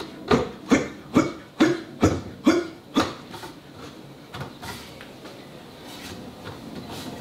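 Wooden cot slat being pounded down onto its dowels with the heels of the hands: about seven quick knocks, roughly two a second, then fainter knocks as the slat is worked, seating a dowel joint in a test fit.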